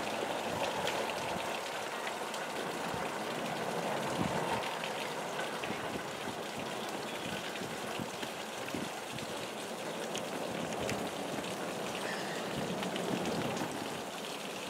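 Steady rain falling: an even hiss with faint, scattered ticks of drops.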